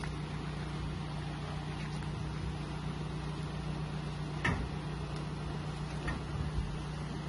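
Van engine idling with a steady low hum, with a few knocks from goods being loaded into its cargo area. The clearest knock comes about four and a half seconds in, and two smaller ones come near the end.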